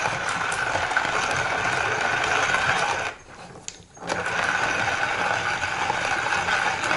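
Small parts clicking and rattling as they are handled and screwed together by hand, over a steady hum with a high tone. The sound cuts out for about a second near the middle.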